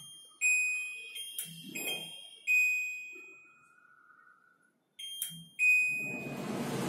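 Touch control panel of a Seavy auto-clean kitchen chimney giving several short, high electronic beeps as its buttons are pressed. Near the end the chimney's blower fan starts up with a steady rushing noise.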